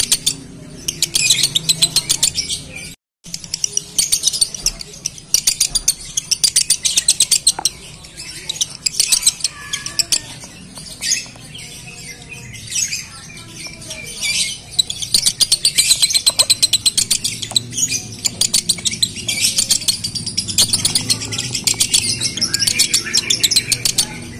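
Male Fischer's lovebird singing the long, unbroken 'konslet' chatter of a male in breeding condition: runs of very fast, high clicking trills one after another. The sound cuts out completely for a moment about three seconds in.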